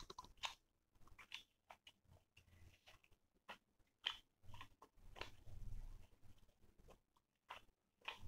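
Faint, close-miked eating sounds: a scatter of small wet mouth clicks from chewing chicken curry and rice, with fingers mixing rice and curry on a steel plate, and a few soft low bumps about halfway through.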